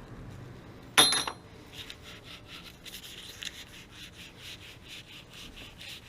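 A sharp metallic clank with a brief ringing about a second in, followed by steady back-and-forth scraping strokes, about three or four a second, like a hand tool being worked against a hard surface.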